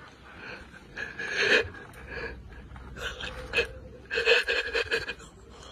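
A person's breathy panting and gasping in three short bursts, about a second and a half in, around three seconds, and strongest between about four and five seconds.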